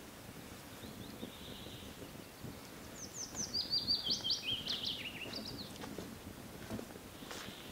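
A songbird sings one quick phrase of sharp chirping notes that step down in pitch, starting about three seconds in and lasting about three seconds, over a faint outdoor background.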